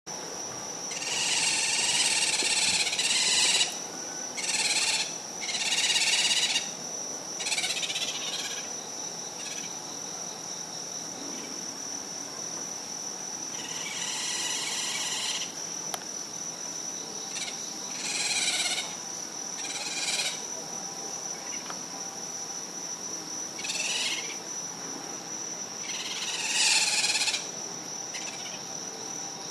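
Captive animal giving repeated rapid trilling 'kerururu' calls, in about nine bursts of half a second to two seconds each, over a steady high whine.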